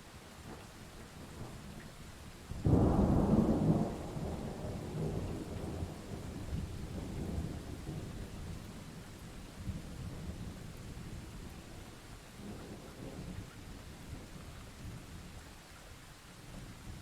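Thunderstorm: steady rain with a sudden close thunderclap about two and a half seconds in that rolls on as a long rumble for several seconds, and a fainter roll of thunder later.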